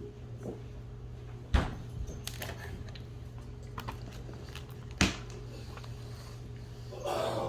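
Two sharp knocks about three and a half seconds apart, with lighter clicks between them, over a steady low hum.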